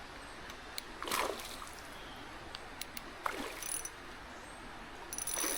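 Hooked trout splashing at the water's surface three times as it is played in, about one, three and five seconds in, over the steady rush of a creek.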